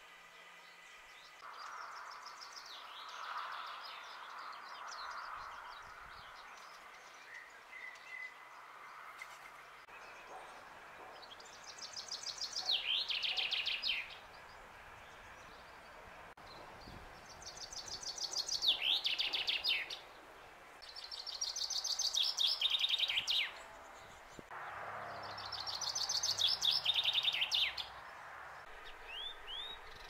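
Common chaffinch singing: four loud song phrases, each a rapid trill falling in pitch and ending in a short flourish, one about every four to five seconds through the second half. Before them, quieter scratchy bird song.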